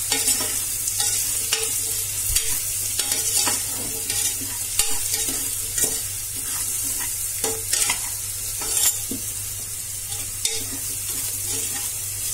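Diced potatoes, onions and dry spices sizzling in hot oil in a pressure cooker, with a steady hiss. A metal spoon stirs them, scraping and knocking against the pot at irregular moments.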